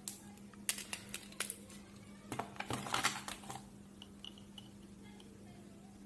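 Light clicks and rubbing of a phone battery and plastic handset parts being handled and fitted, mostly in the first half, over a faint steady hum.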